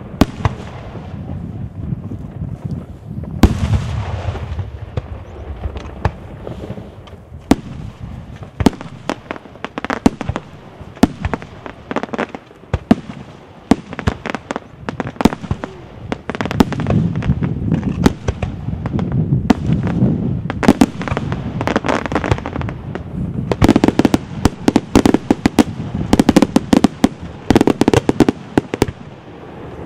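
Daytime aerial fireworks: shells bursting overhead in a long series of sharp bangs with a rolling low rumble between them. The reports come thicker and faster in the last several seconds.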